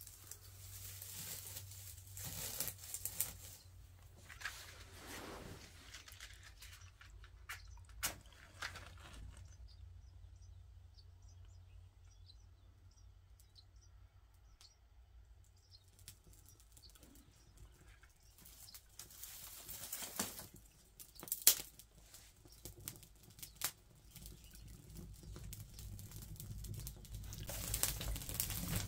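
Dry brushwood and straw rustling and crackling as they are handled and pushed into a mud firebox, with a few sharp snaps and cracks, the sharpest about two-thirds of the way through. Faint bird chirps come in the middle.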